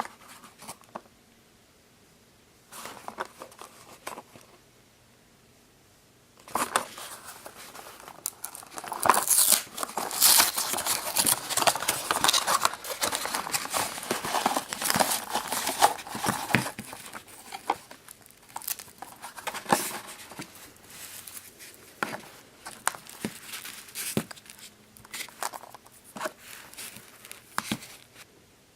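Foil wrapper of a Choco Egg chocolate egg crinkling and tearing as it is unwrapped by hand. The crinkling starts about six seconds in, is densest in the middle, and then thins to lighter crackles and clicks.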